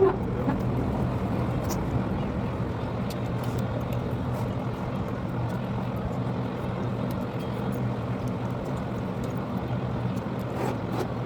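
A motor running with a steady low hum, and faint scattered clicks over it.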